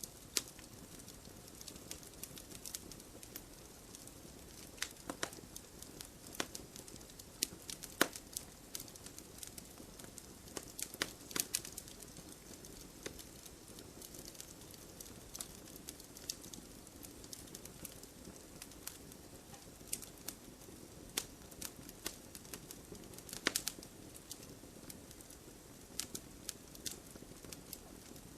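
Campfire crackling: irregular sharp pops and snaps of burning wood over a soft, steady rush of the flames, with a few louder pops spaced through it.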